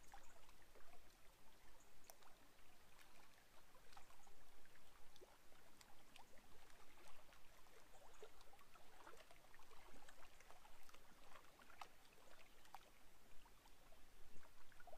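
Small waves lapping against a rocky lake shore: faint, irregular trickling and splashing.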